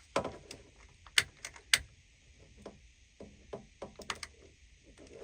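Irregular sharp clicks and light knocks of small hard parts and tools being handled, the loudest a little over a second in and again just under two seconds in, with a quick cluster of ticks about four seconds in.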